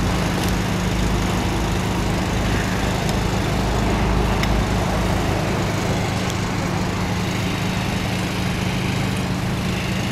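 An engine running steadily: a constant low hum that does not change.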